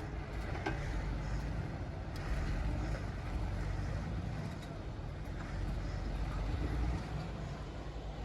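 Off-road Jeep's engine running low and steady as it crawls a rocky trail, with a few faint knocks.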